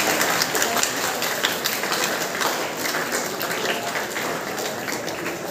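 A crowd of students clapping. The applause is a dense patter that thins and fades toward the end.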